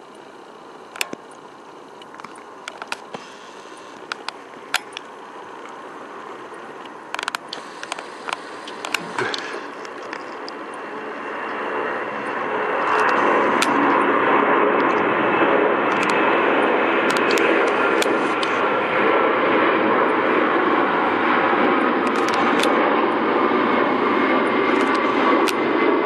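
Airbus A310-304's twin General Electric CF6-80C2 turbofans at takeoff power, growing louder over the first dozen seconds, then a loud steady rumble with whining tones that slowly fall in pitch as the airliner climbs away. A few sharp clicks sound in the first ten seconds.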